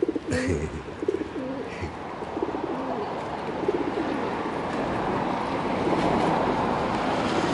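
Feral pigeons cooing, several low wavering coos one after another. There is a sharp tap near the start, and a rushing noise builds up through the second half.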